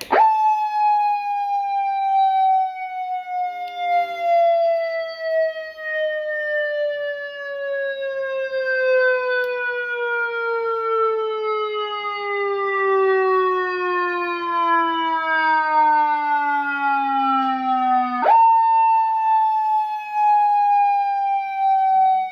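Vietnamese police siren sounding loud and steady. It starts at a high pitch and glides slowly down for about eighteen seconds, then jumps back up to the top pitch and begins falling again.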